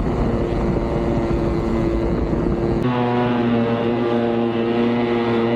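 Motorized jetsurf board's engine running steadily at speed over the rush of water and wind. About three seconds in the sound changes abruptly to a cleaner, steady engine hum.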